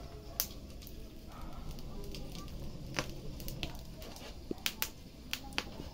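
Wood fire crackling in a wood-fired stove, with sharp pops scattered through and several in quick succession near the end.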